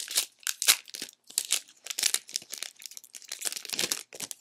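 Trading cards and their crinkly packaging being handled by hand: a string of irregular crinkles and rustles that die away near the end.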